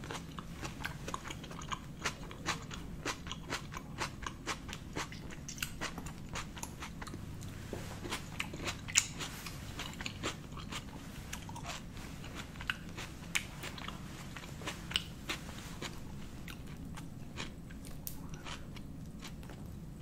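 Close-miked chewing of a mouthful of spaghetti carbonara: many small sharp wet mouth clicks and crunches, thickest in the first half and thinning out toward the end.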